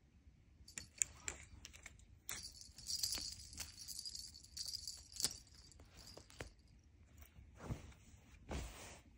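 Kitten pouncing on and biting a feather wand toy on a bed: scattered soft knocks and rustles of the toy and bedding, with a steadier high rustle of the feathers for about three seconds in the middle.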